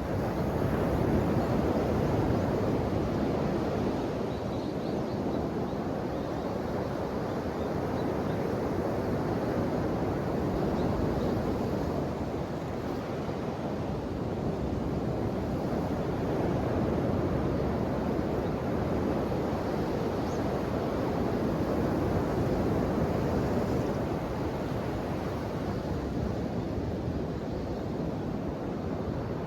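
Ocean waves washing onto the shore in a steady rushing wash, surging and easing every several seconds.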